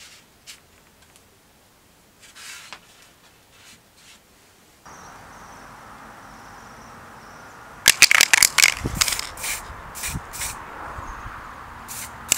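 Aerosol spray can of varnish being shaken, its mixing ball rattling in a quick run of sharp clicks for about two and a half seconds. Before it, a few faint ticks, then a steady outdoor background from about five seconds in.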